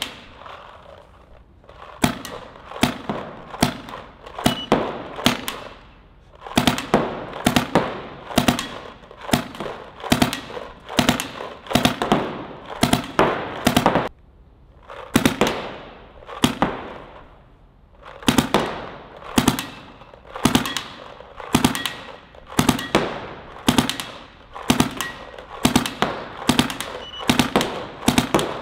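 DLX Luxe X electronic paintball marker firing in quick snap bursts of one to four shots, a burst about every second with a few short pauses. Each shot is a sharp pop with an echo.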